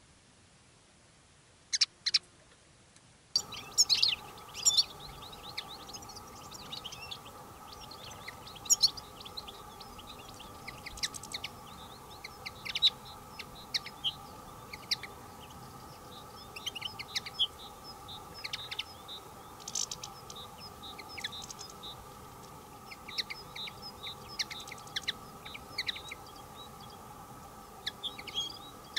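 A flock of European goldfinches calling, with a couple of sharp calls about two seconds in and then dense, continuous twittering and tinkling chirps from about three and a half seconds on, over a steady faint drone.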